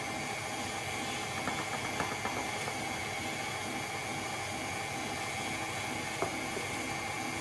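KitchenAid Classic stand mixer running steadily, its wire whisk beating cream cheese and powdered sugar in a stainless steel bowl. It makes an even motor hum and whine, with a few light clicks between about one and a half and two seconds in, and one more near six seconds.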